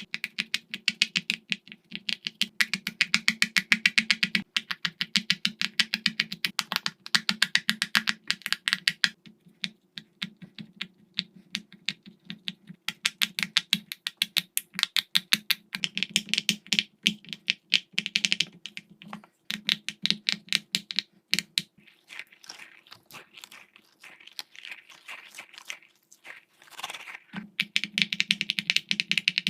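Silicone pop-it fidget toy bubbles being pressed one after another, a rapid run of short pops at several a second, in runs broken by brief pauses and sparser stretches. A steady low hum lies underneath.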